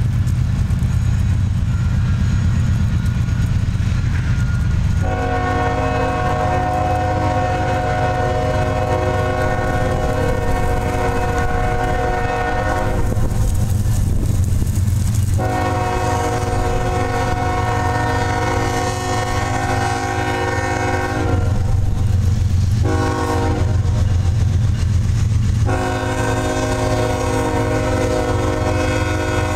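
Diesel locomotive air horn on Norfolk Southern GE ES44AC 8064 sounding the grade-crossing signal as it approaches the crossing: long, long, short, long. The last long blast is still going at the end. A steady low rumble runs underneath.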